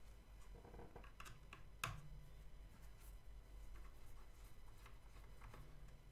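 Faint scattered clicks and taps of a small screwdriver and screws as two screws are taken out of a Hubsan Zino 2 drone's plastic gimbal frame, with one sharper click about two seconds in.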